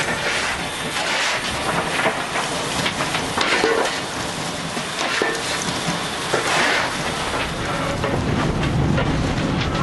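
Steam locomotive running, heard from the footplate: a loud rushing noise with irregular crackly bursts and clatter, and a deeper rumble building near the end.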